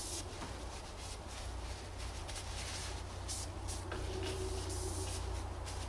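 Scattered light clicks and rustles of hands handling parts in the engine bay, over a steady low hum.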